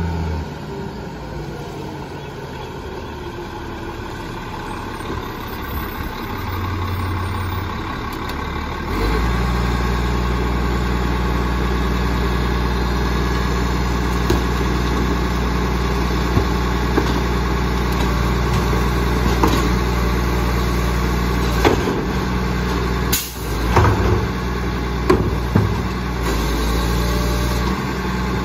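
Labrie Expert side-loader garbage truck driving up and then running at a standstill, its engine turning from a moderate hum into a louder steady low drone about nine seconds in as it pulls up close. From about twenty seconds in, sharp knocks and clatters of plastic garbage carts being wheeled and handled beside the truck.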